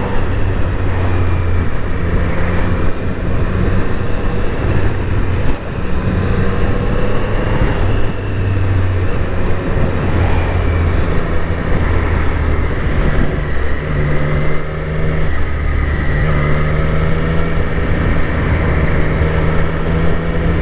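The Triumph Street Triple RS's 765 cc three-cylinder engine running steadily on the move in third gear, its pitch shifting a little up and down.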